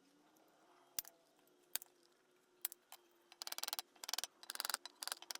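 Small sharp clicks: three single ones spaced about a second apart, then four short runs of rapid clicking from about halfway in.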